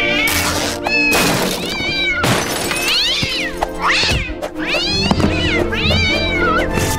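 A cartoon cat character yowling and meowing while pouncing after a laser dot: a string of about six or seven cries, each rising then falling in pitch. Background music plays underneath.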